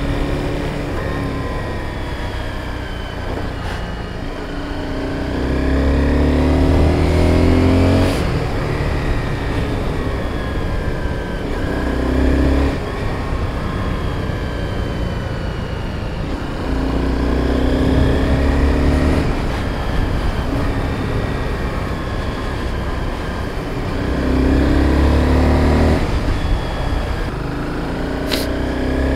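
Honda sport motorcycle's engine running on the move, its pitch rising and falling with the throttle over a steady rush of wind noise. The engine grows louder in several stretches of about two seconds each.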